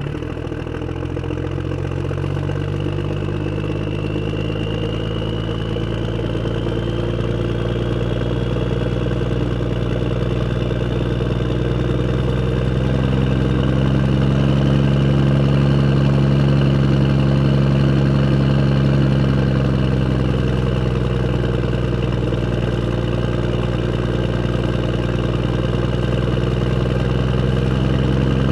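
Tractor engine running at a steady, low speed as the tractor drives along a road, growing louder over the first half, then holding steady. A faint high whine rises slightly in pitch during the first few seconds.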